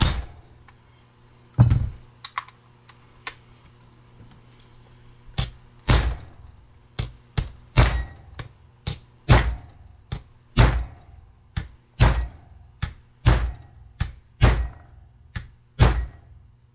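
A hammer driving a domed expansion plug into the housing of a Ford tractor leveling box: two blows, a pause of a few seconds, then a steady run of blows about two a second, some with a short metallic ring. The blows flatten the plug's dome so the disc wedges tight in its bore.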